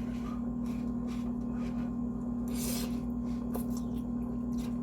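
Someone eating poutine: a few soft chewing and rustling noises over a steady low electrical hum.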